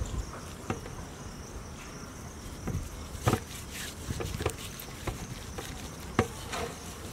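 Gloved hands rubbing turmeric powder into raw goat legs in a steel bowl, giving soft squishes and a few sharp taps, the clearest about three seconds in and again near six seconds. Under them runs a steady high-pitched chirring of insects.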